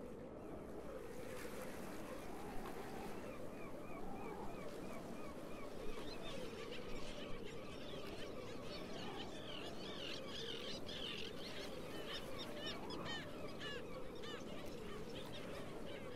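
Many birds calling in quick, short, repeated calls that come thickest from about six seconds in, over a steady background rumble.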